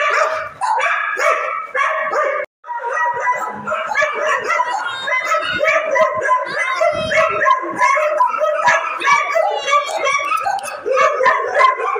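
Several kennelled shelter dogs barking and yipping at once, a continuous overlapping chorus. The sound drops out for an instant about two and a half seconds in.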